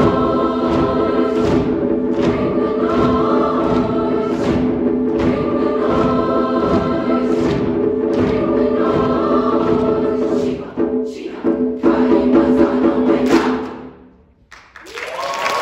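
Choir of young voices singing a loud sustained chord over regular percussive hits, about two a second, stopping about 14 seconds in. After a short hush the audience starts to cheer near the end.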